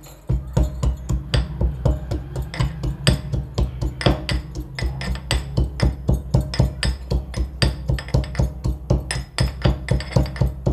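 Pestle pounding peeled fresh ginger in a mortar, crushing it fine: a steady run of sharp strikes, about four a second.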